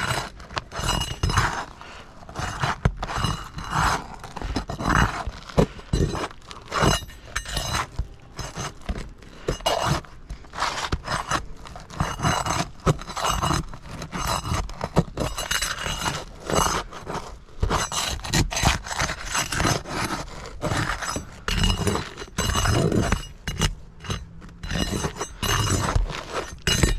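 Hand tool scraping and prying under 3-tab asphalt shingles to pull out the roofing nails: a steady run of irregular scrapes and knocks with short pauses.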